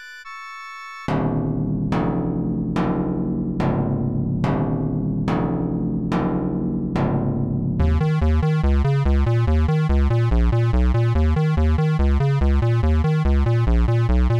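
Synthesized electronic band music: a quiet high held tone, then about a second in a loud deep struck note repeating a little under once a second, each one ringing out. From about eight seconds in it turns into a faster, denser layered synth pattern over a heavy bass beat, and it cuts off suddenly at the end.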